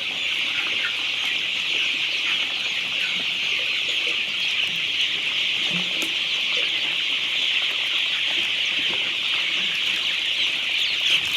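Large flock of desi chickens: a dense, steady chorus of many overlapping high-pitched cheeps, with a few scattered lower clucks.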